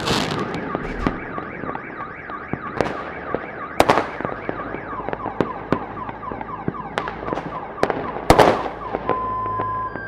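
Fireworks bursting, with two loud bangs about four and eight seconds in and scattered crackling between them. Over this a car alarm warbles, cycling a few times a second, and near the end it switches to steady alternating two-tone beeps.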